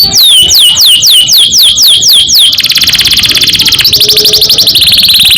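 Domestic canary singing: a run of repeated whistled notes, each sliding downward, about four a second, then about halfway through it breaks into a fast rolling trill that shifts to a slightly lower trill near the end.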